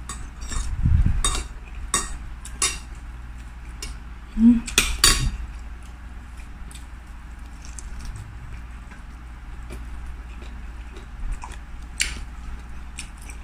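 Cutlery clinking against ceramic dishes during a meal: a string of short clicks and knocks in the first five seconds, one more near the end, over a steady low hum.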